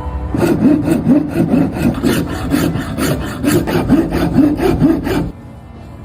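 Wooden slingshot frame being shaped with a hand file, quick back-and-forth strokes about four a second that stop near the end.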